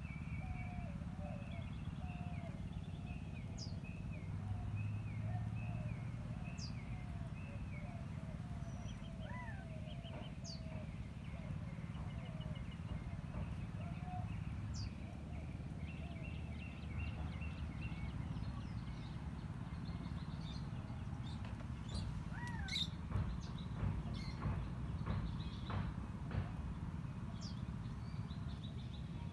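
Birds calling: a run of short, curling chirps about two a second that fades after ten seconds or so, with scattered thin high calls, over a steady low rumble. A cluster of sharp clicks and knocks comes near the end.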